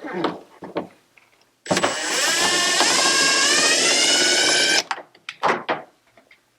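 A few light knocks, then a cordless power driver runs for about three seconds, its whine rising slightly in pitch as it backs out a fastener, and stops abruptly, followed by a couple of short clicks.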